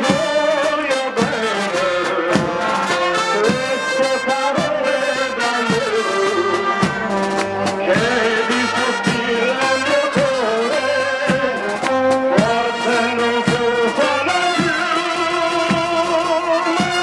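Brass band of trumpets and trombones playing a festive march-style tune over a steady drum beat.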